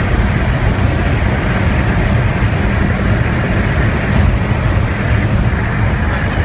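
Loud, steady in-cabin rumble of a Jaguar XF driven at high speed, around 110 mph: engine and tyre noise.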